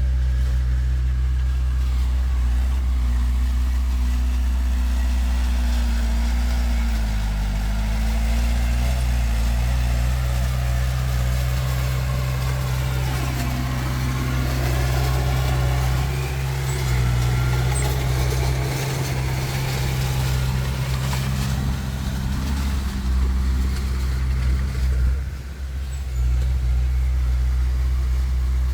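Heavy diesel engine running steadily with a deep, even note, which dips briefly about a quarter of the way in and again near the end.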